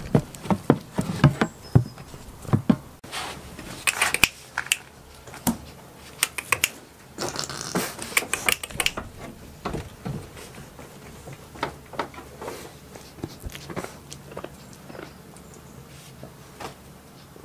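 Goats moving right at the microphone, nosing and nibbling: irregular close clicks and knocks, with a longer scraping rustle about eight seconds in.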